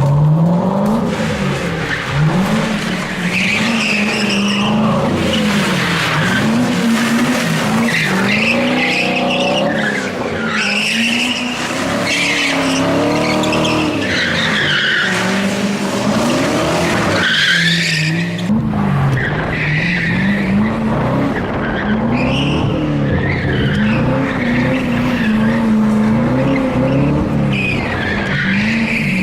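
C6 Corvette's V8 engine revving up and down repeatedly during drifting, with tyres squealing through the slides.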